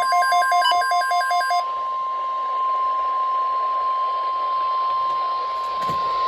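NOAA Weather Radio's steady 1050 Hz warning alarm tone, held over radio hiss, signalling that a weather alert is about to be read. For the first second and a half a fast alternating high-low electronic beep sounds over it.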